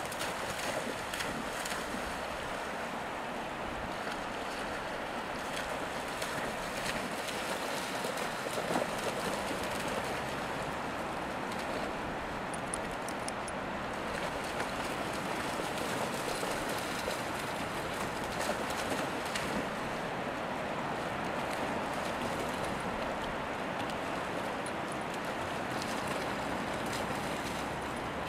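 Steady rushing of surf and wind at the shore, with dogs splashing through the shallow water now and then.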